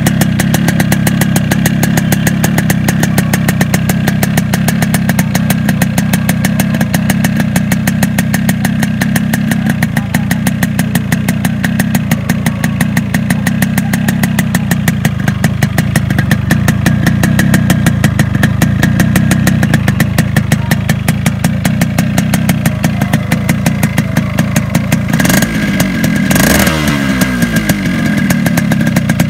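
Yamaha RX115's two-stroke single-cylinder engine idling steadily, smoking from the exhaust. Near the end it is briefly revved and falls back to idle.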